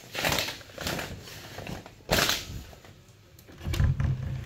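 A fabric curtain swishing several times as it is pushed aside. Near the end a metal door latch is worked open.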